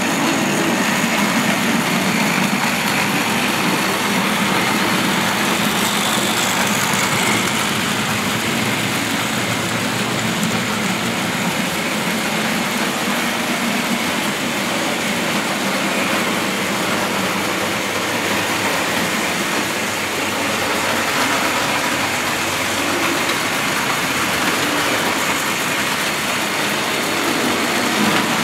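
Tri-ang 00 gauge model trains running on the track: the steady running noise of the locomotives' small electric motors and metal wheels on the rails, with no real change in level.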